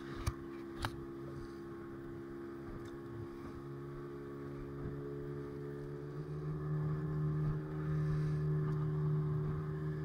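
Small fishing boat's engine running steadily, growing louder about six seconds in. A couple of sharp knocks in the first second.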